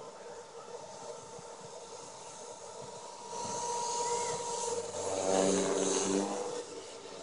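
Compass Warp 360 electric RC helicopter flying, its motor and rotor giving a steady whine. It grows louder about halfway through, with a deeper buzzing rotor tone layered on for a second or two near the end.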